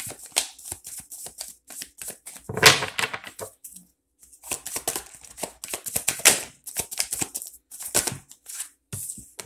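A deck of tarot cards being shuffled by hand: a quick, uneven run of light card clicks and flicks, with one louder, fuller rustle about two and a half seconds in.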